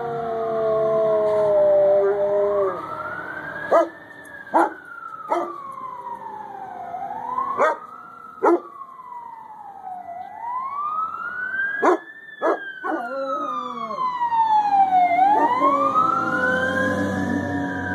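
A Chinook dog howling along with fire truck sirens. The sirens wail, rising and falling slowly in pitch about every four seconds, and several short, sharp, loud sounds break in around the middle.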